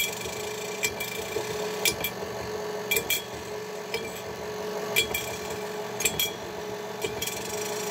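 KitchenAid stand mixer running on low speed with a steady motor hum, its flat beater sweeping the empty stainless bowl and knocking a dime on the bottom, which gives a light metallic click about once a second. The dime moving only now and then is the sign that the beater height is set about right, neither grinding the bowl nor riding too high.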